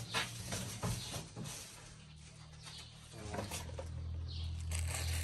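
Handling clicks and knocks as parts are moved about in an engine bay, with birds chirping in the background. A low steady hum comes in about three seconds in and grows louder.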